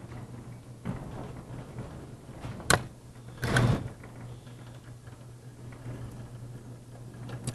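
Steady low hum of a quiet room, broken by a single sharp click a little under three seconds in and a brief scraping knock about a second later.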